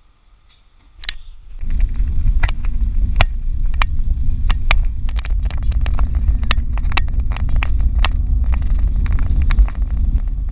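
Wind buffeting the microphone of a mountain bike's handlebar camera as the bike rolls along a concrete road, a loud, steady, deep rumble that sets in about a second and a half in. Sharp, irregular clicks and rattles from the bike over the road surface run through it.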